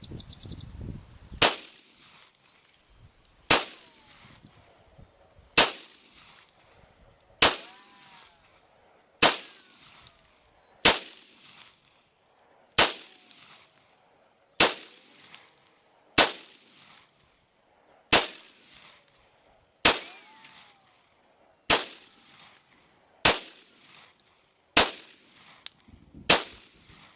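Glock Model 40 10mm pistol fired fifteen single shots at a slow, steady pace, about one every two seconds. These were Federal 180-grain loads, and the pistol cycled through the full magazine without a malfunction.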